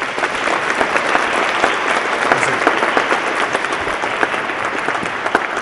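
Audience applauding, a dense, steady round of clapping from many hands.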